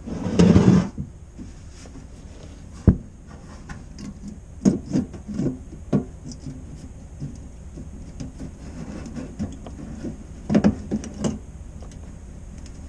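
Stainless steel sink being handled and pulled on by hand to bend a cut section: scattered knocks, taps and creaks of thin sheet metal. A loud rustling handling noise opens it, with a sharp knock about three seconds in and a cluster of knocks near the end.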